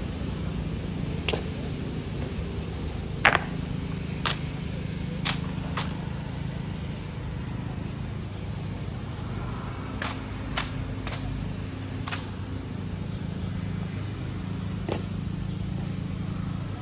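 About ten sharp, short clicks at uneven gaps over a steady low drone; the loudest click comes about three seconds in.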